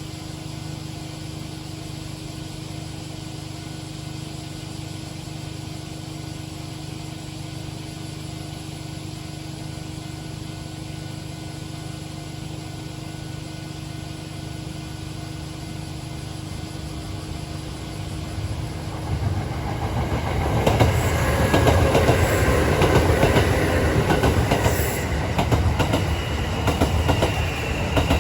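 Kintetsu 8000 series and 8A series eight-car electric train approaching and passing over a level crossing. For about the first two-thirds there is only a steady low background with a faint constant tone. A rumble then builds and turns into loud wheel clatter over the rail joints as the cars go by.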